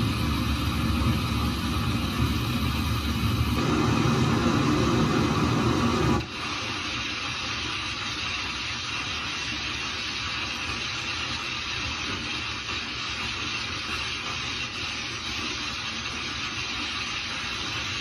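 Heavy rain and hail coming down in a storm, a steady dense hiss. For the first six seconds a deep rumble runs under it; then the sound changes abruptly to a thinner, higher hiss of hail and rain falling on a flooded street.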